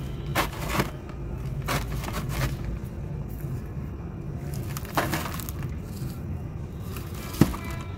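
Soft sand-cement balls set down by hand into a plastic bucket: a few separate gritty knocks and scrapes, the sharpest about seven and a half seconds in, over a steady low background rumble.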